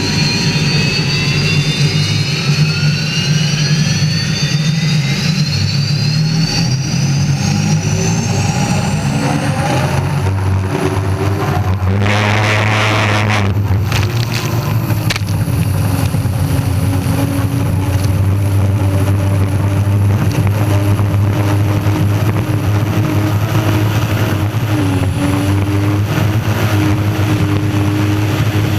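Unlimited hydroplane's Lycoming T55 gas turbine engine running hard, its whine climbing in pitch over the first ten seconds as the boat accelerates, then holding steady over a deep drone. About twelve seconds in there is a brief rushing noise.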